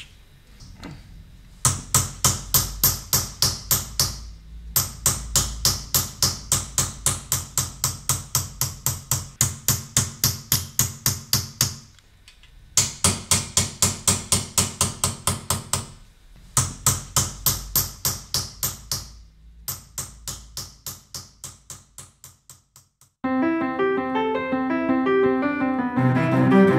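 Chasing hammer tapping a wide tracing punch along a silver plate: quick, even runs of metallic strikes, about four to five a second, each ringing briefly, with short pauses between runs. Near the end, piano music comes in.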